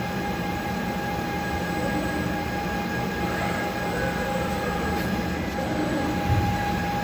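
Concrete 3D printing machinery running steadily: a constant mechanical rumble with a steady high whine over it.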